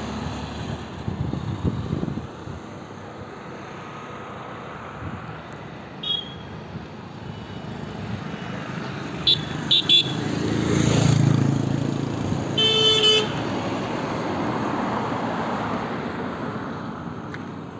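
Road traffic going past, with wind on the microphone. A few short horn toots come just before halfway, a vehicle passes loudly soon after, and a longer horn honk sounds a little past two-thirds of the way through.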